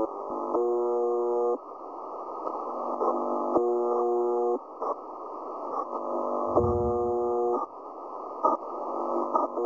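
A buzzer-like shortwave signal on 4675 kHz, received through a WebSDR in upper sideband: a harsh buzz about a second long that repeats every three seconds over steady radio static, with a couple of sharp clicks near the end.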